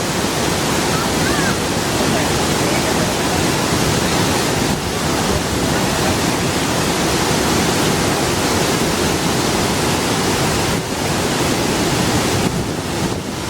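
Waterfall rushing, a loud, steady wash of falling water with short dips in level.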